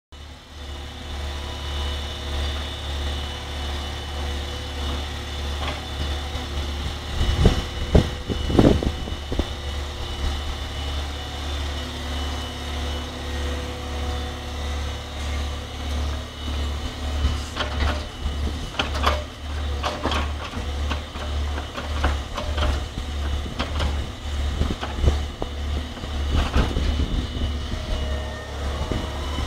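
Diesel engine of an O&K MH Plus wheeled excavator running steadily and smoothly as the machine swings and works its boom and bucket. A few loud knocks come about seven to nine seconds in, and scattered clanks follow through the second half.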